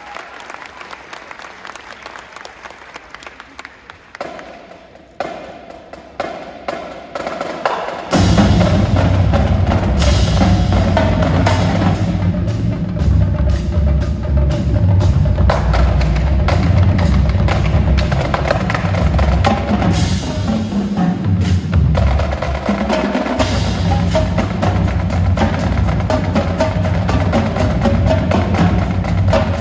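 Marching drumline of snare drums, tenor drums, marching bass drums and cymbals playing. It starts quiet, with scattered hits that grow louder over a few seconds. About eight seconds in the full line enters loud, with heavy bass drums under fast snare and tenor patterns, and cymbal crashes about ten and twenty seconds in.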